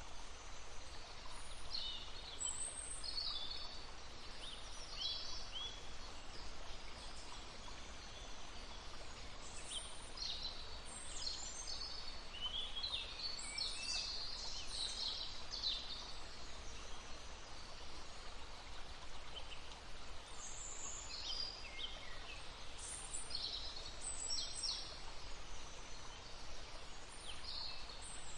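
Several small songbirds chirping and trilling over the steady rush of a babbling stream.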